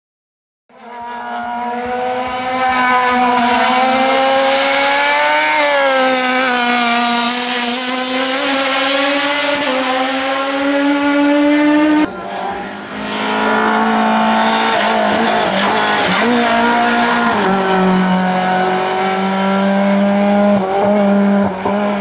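Race car engine running hard at high revs, its pitch held fairly steady with small rises and falls, with tyre squeal. The sound breaks off abruptly about halfway through and picks up again on another pass.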